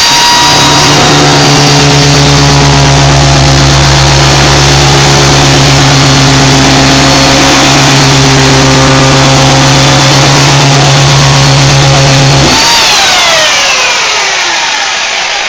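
Chainsaw revved up to full speed and held there while cutting off a plumbing fitting, then released about twelve seconds in, its pitch falling steadily as the chain slows.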